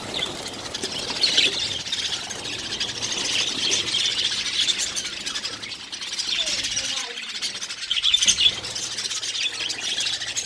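A colony of budgerigars chattering together, a dense mix of high calls with louder flare-ups every few seconds.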